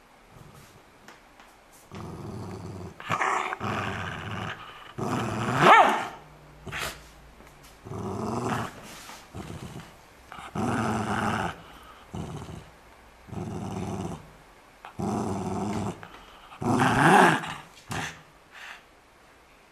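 Schipperke growling in repeated bouts of about a second each with a pillow clenched in her mouth, a protective growl guarding the pillow. The loudest growls, about six seconds in and again near the end, rise in pitch.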